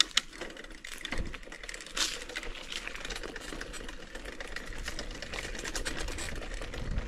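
Bicycle freewheel ratchet ticking rapidly as the bike coasts.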